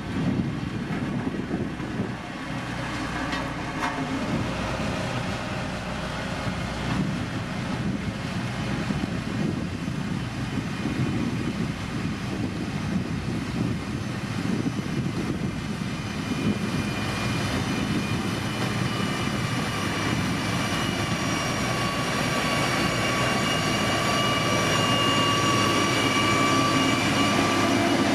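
Diesel engine of heavy road-building machinery, a motor grader or road roller, running steadily with a low rumble. About halfway through a steady high whine joins it, and the whole sound grows louder toward the end.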